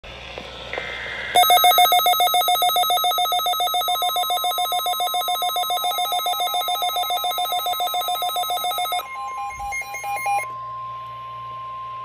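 NOAA weather radio sounding its alert: a loud, fast, evenly pulsing multi-tone beeping, about six beeps a second, starting just over a second in and stopping about nine seconds in. Under it, and on alone after it stops, is a steady tone near 1 kHz, the broadcast's 1050 Hz warning alarm tone that comes before the spoken warning.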